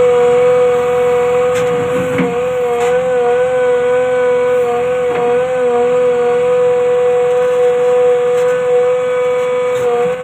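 JCB 3DX backhoe loader's diesel engine and hydraulic system running, heard close up at the control valve block: a loud steady whine whose pitch wavers slightly, with a few short knocks.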